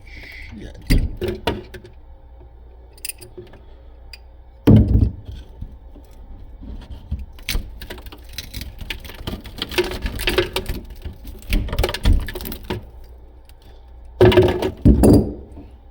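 Irregular knocks, taps and small metallic clatters from hands and tools working at a broken-off water valve, with sharper thunks about five seconds in and near the end.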